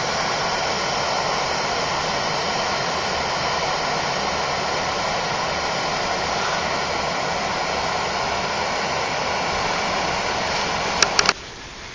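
Loud, steady rushing noise that cuts off abruptly near the end, just after a few sharp clicks.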